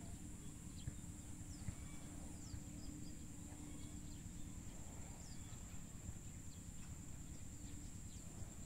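Outdoor ambience: a steady, high-pitched insect drone with many short, falling bird chirps scattered through it, over a low rumble.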